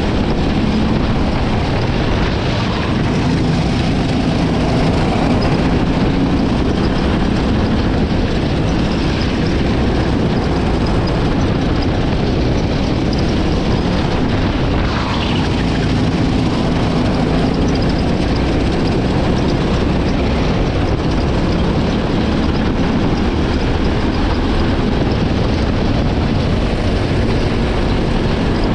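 Go-kart engine running steadily through a lap, heard from the driver's seat with wind rushing over the microphone; its pitch rises and falls only a little.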